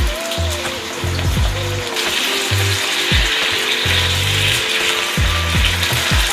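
Food sizzling in hot oil in a frying pan, the sizzle growing louder about two seconds in. Background music with a deep bass beat plays underneath.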